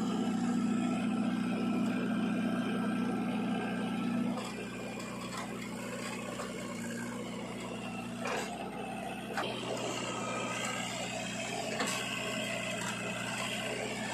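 Diesel engines of a JCB 3DX backhoe loader and a Mahindra tractor running steadily while the backhoe works. The engine note drops about four seconds in, and a few short knocks come later as the bucket moves soil.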